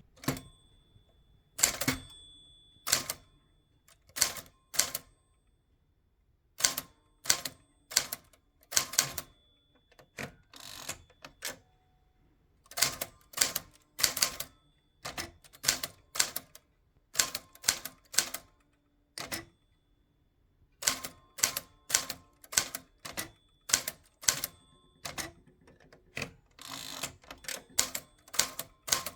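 1961 Tower Constellation manual portable typewriter, a Smith-Corona build, typed one-handed: sharp type strikes in irregular runs of several a second, broken by pauses of a second or two, many strikes leaving a faint metallic ring.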